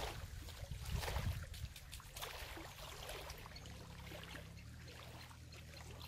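Faint shoreline ambience: small waves lapping and trickling at the water's edge over a steady low rumble of wind on the microphone.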